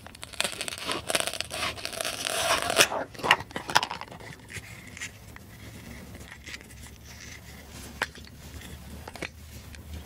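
Velcro pads on a plastic toy watermelon ripping apart as a plastic toy knife cuts through it: a raspy tearing for about the first three and a half seconds. It is followed by light plastic clicks and taps as the halves and knife are handled.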